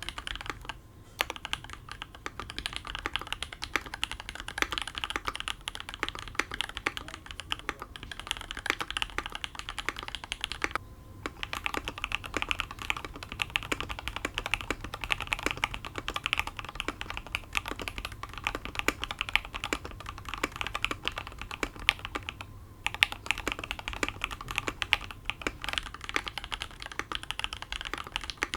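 Continuous fast typing on a custom mechanical keyboard: a Matrix 2.0 ADD with an aluminium plate, foam-filled case and Sp-Star Meteor White linear switches. It gives a dense stream of thocky key strikes, broken by short pauses about a second in, about 11 seconds in, and about 22 seconds in.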